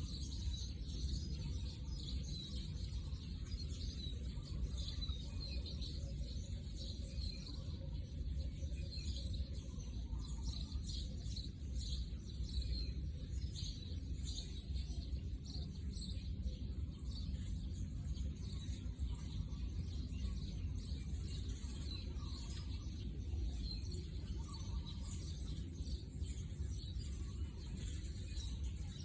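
Outdoor ambience: scattered small bird chirps over a steady low rumble.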